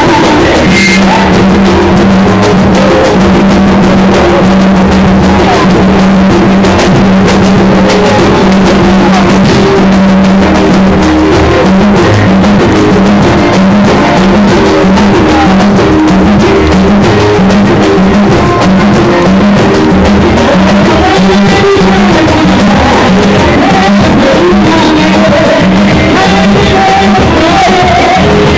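Loud live worship music with a group singing over a steady low held note that begins to pulse about halfway through.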